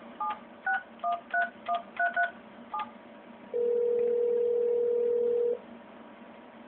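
Cisco 7940-series IP phone dialing a number on speakerphone: about ten short touch-tone (DTMF) keypad beeps, then a single steady ringback tone lasting about two seconds, the sign that the call has gone through and the far end is ringing.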